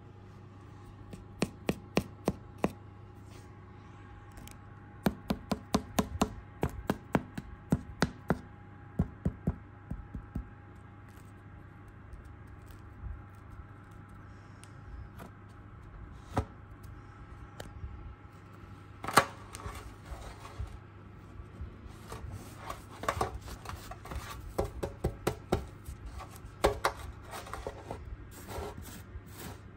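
Fingers tapping and rubbing the dry, floured crust of a round loaf of banana bread in a metal baking tray: sharp knocks in quick clusters, turning to denser crackling and scraping in the second half.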